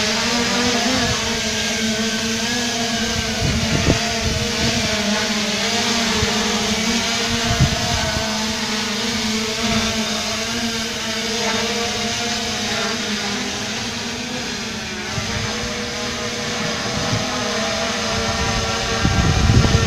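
3DR Solo quadcopter's motors and propellers running steadily as it climbs and flies off after takeoff: a layered whining hum whose pitch wavers slightly. Low rumbling gusts begin near the end.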